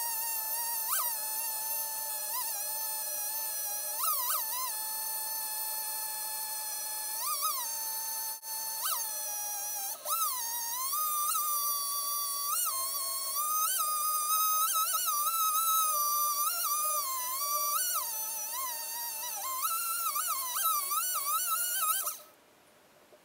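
Music: a high, buzzy melody line that slides and steps between held notes, cutting off suddenly near the end.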